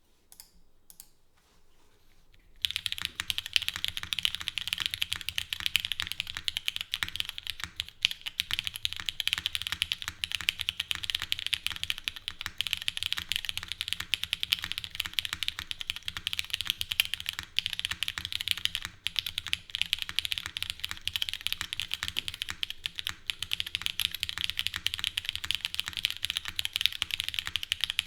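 Continuous typing on a custom Dalco 959 Mini mechanical keyboard with lubed and filmed Cherry MX Black linear switches, an o-ring-mounted polypropylene plate, no foam and DMK keycaps. A few faint clicks come first, then dense, steady keystrokes from about two and a half seconds in.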